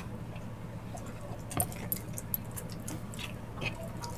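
Close-up eating sounds: scattered soft, wet clicks and smacks from chewing and from bare hands handling sticky stewed ox feet, over a steady low hum.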